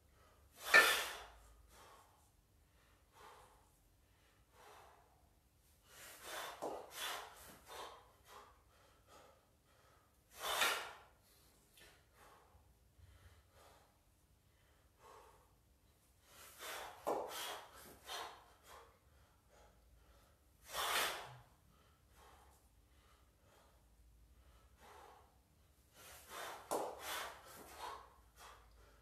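Hard, forceful breathing of a kettlebell lifter under exertion: a single sharp exhale, then a quick cluster of short breaths, repeating about every five seconds.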